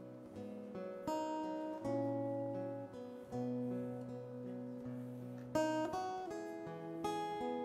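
Acoustic guitar played softly, chords picked and strummed with a new chord every second or two, each left to ring out.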